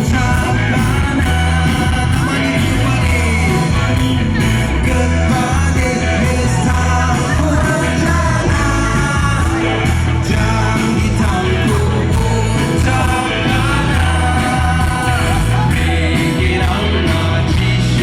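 Loud music with singing over a steady bass beat.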